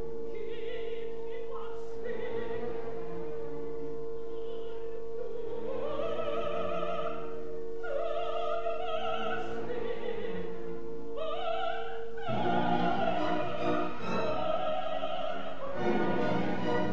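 Operatic soprano singing with orchestra. A long note is held steady under her wavering, rising phrases, and the orchestra comes in fuller about twelve seconds in.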